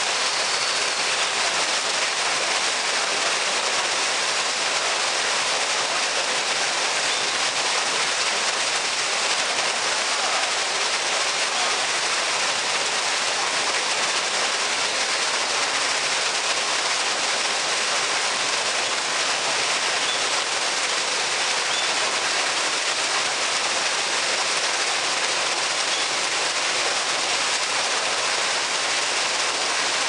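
Artificial waterfall: a single stream of water falling from a stone spout and splashing into a shallow pool, a steady, even rush of water.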